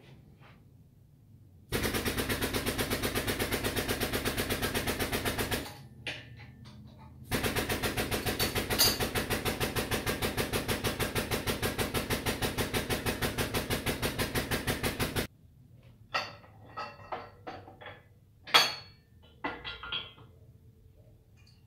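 Rapid, even mechanical rattle from the tube bender being power-driven as it bends roll-cage tubing, in two runs of about four and eight seconds. A few separate clanks and knocks follow near the end.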